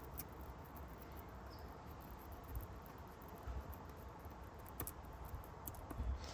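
Faint low room hum with a few small, sharp clicks and ticks from a small tool working on the iPhone flex cable.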